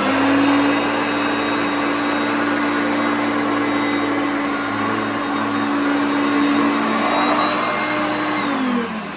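Hoover Concept upright vacuum cleaner running with a steady motor hum and rushing air, having just spun up. Near the end it is switched off and the motor's pitch falls as it winds down.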